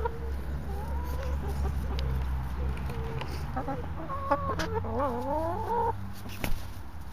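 Several hens clucking and giving drawn-out calls, ending in a wavering call that rises and falls, with a few sharp clicks among them.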